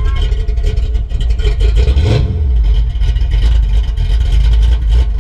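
Cammed 5.0-litre V8 of a 1987 Ford Mustang GT idling loudly through its exhaust, rising briefly about two seconds in.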